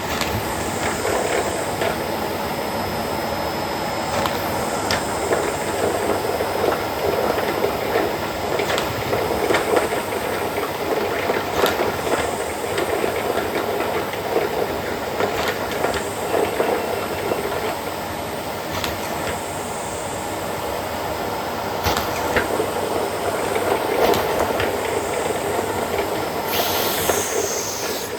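Bosch BGS21X320 bagless vacuum cleaner running steadily, with small hard objects clicking and rattling as they are sucked up through the hose.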